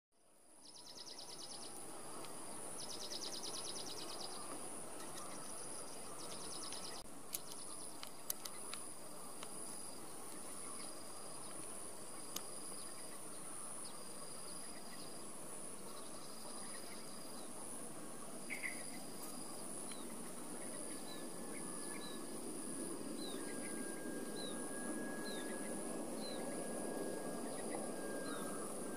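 Outdoor insect chorus: a steady high-pitched drone, with bursts of rapid trilling in the first few seconds and short repeated chirps later. Beneath it is a low steady hiss that grows slightly louder near the end, with a few faint clicks.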